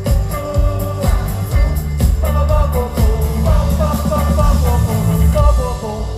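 Live pop-rock band playing loud over a concert PA, heard from the crowd: drums, bass and electric guitars with a sung lead vocal.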